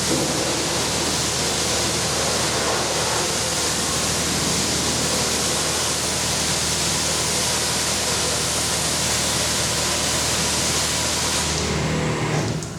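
Pressure washer spraying water steadily in a loud, even hiss, with a steady low hum underneath; the spray cuts off near the end.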